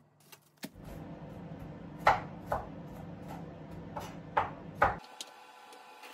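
Kitchen knife chopping on a cutting board: a handful of sharp, unevenly spaced knocks between about two and five seconds in, over a steady low background hum.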